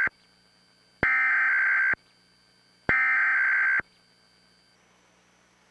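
Emergency Alert System SAME header: a harsh digital data screech of about a second, sent in repeated identical bursts with about a second of silence between. One burst cuts off just as this begins, and two more follow, about one and three seconds in.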